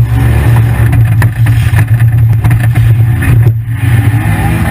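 Engine of a 1997 Honda Accord demolition derby car, heard loud from inside the cabin, running hard and revving up and down as the car moves.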